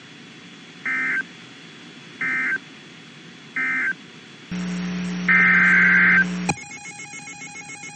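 Three short bursts of EAS/SAME digital data, the end-of-message code that closes an alert, about a second and a half apart. They are followed by a steady electronic buzz with a louder tone on top for about two seconds, which cuts off suddenly into a pulsing, many-toned electronic signal.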